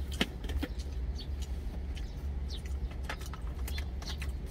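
Light clicks and metallic taps of a stainless steel thermal lunch jar being handled and its lid turned, over a steady low hum in the truck cab.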